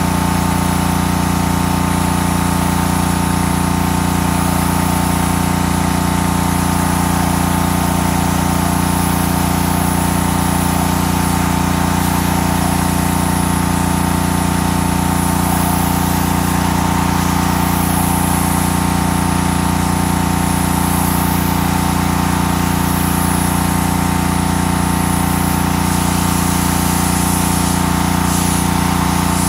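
Honda gas pressure washer's single-cylinder engine running steadily at a constant speed.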